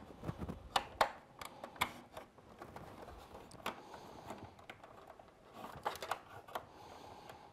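Irregular clicks and small knocks of hard plastic as a battery is worked into the battery compartment of a vintage 1980s Snake Mountain toy playset; the battery is a tight fit.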